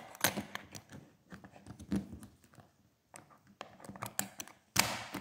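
Small plastic-and-metal clicks and knocks from the suitcase's built-in combination lock being worked by hand, irregular in spacing, with a louder clack about five seconds in.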